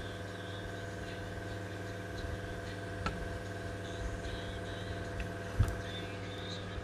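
Sony TCM-313 cassette recorder mechanism running: its small motor hums steadily as it drives the belt, capstan and spindles. A couple of light clicks come through, the loudest about five and a half seconds in.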